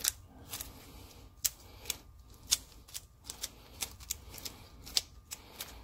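Nitrile-gloved fingers kneading a lump of two-part epoxy putty, giving irregular sharp crackling clicks, about two or three a second.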